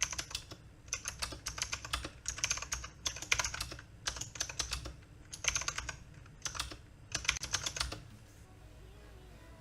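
Fast typing on an AULA Wings of Liberty mechanical keyboard with clicky blue switches, similar to Cherry MX Blue, in quick runs with short pauses between them. The typing stops about eight seconds in.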